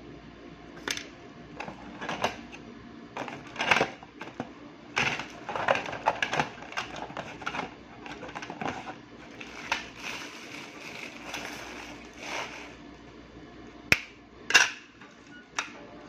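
Irregular clicks, taps and rustling as small parts, wires and hand tools are handled on a desk, with three sharp clicks near the end, the loudest.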